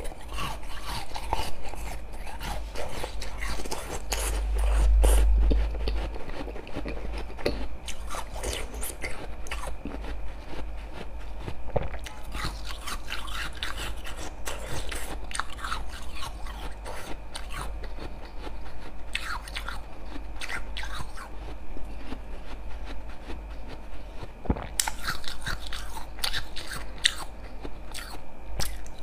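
Slushy ice frozen in a water bottle being bitten and chewed, with repeated crisp crunches throughout.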